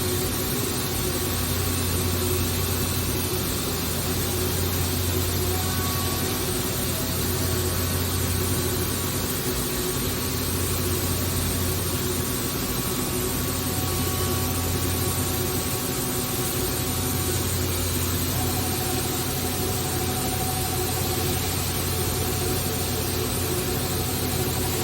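Okuma & Howa Millac 853PF-5X CNC machining center running under power: a steady low machine hum with fainter whining tones that come and go.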